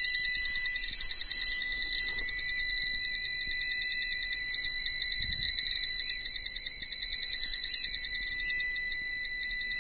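Non-contact voltage tester pen's buzzer sounding continuously, a steady high-pitched electronic tone with overtones, set off by the high-voltage field around the coil, battery and inverter.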